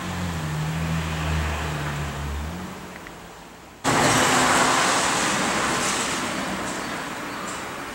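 Low engine hum of a passing road vehicle, shifting in pitch and fading away. About four seconds in, it cuts suddenly to a louder, even rushing noise that slowly eases.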